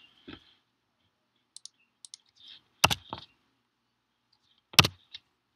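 Scattered keystrokes on a computer keyboard: a few faint taps, then two sharper, louder clicks about three and five seconds in.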